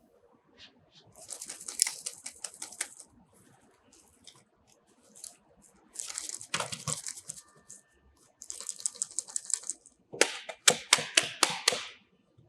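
Hard plastic clicking and rattling in four bursts of rapid clicks: an airsoft Glock magazine being worked in and out of a locking plastic mag pouch and its tap-release latch.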